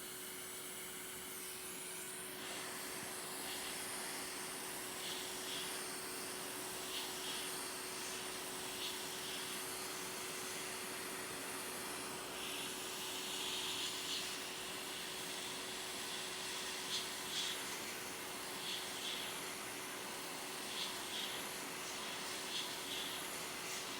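Hot air rework station blowing a steady hiss over a low hum, heating the metal shield off a phone logic board to remove it. Short, faint scratchy sounds come and go from about two seconds in.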